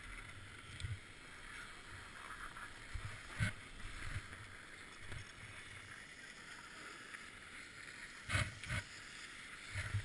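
Skis sliding and scraping over packed snow in a steady hiss, with a few dull knocks about three and a half and eight and a half seconds in.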